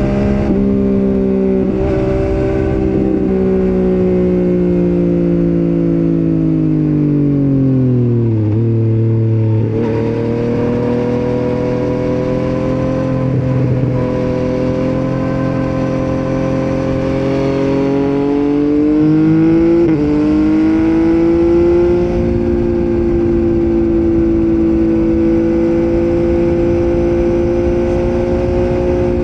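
Motorcycle engine running while riding: the revs fall steadily for several seconds, then climb again, with a sudden step up in pitch about twenty seconds in, after which it holds a steady note.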